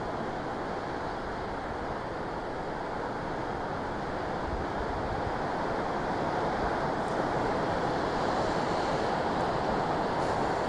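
Surf breaking and washing onto a sandy beach: a steady rushing noise that swells a little past the middle.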